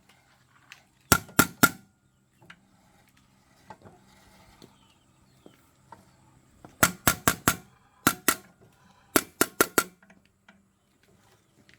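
Sharp metallic knocks in quick runs of three to five, four runs in all, typical of metal tapping on metal while a small diesel engine is worked on; small clicks between the runs.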